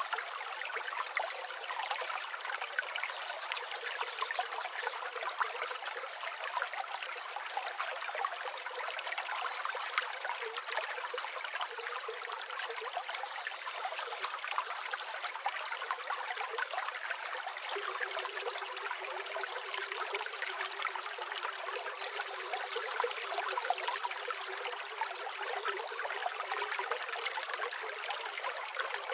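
River water flowing and babbling steadily over stones, a continuous bright trickling wash with no deep rumble.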